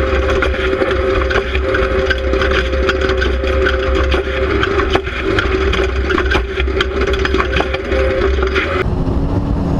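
Off-road race truck running at a steady engine note with a deep rumble, heard from a camera mounted on the truck. Dense crackling and rattling rides over the engine and cuts off abruptly about a second before the end.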